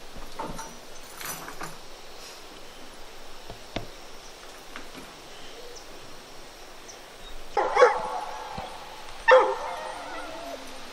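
A hunting hound baying twice near the end: two loud, wavering calls, each under a second long, after a stretch of faint background noise.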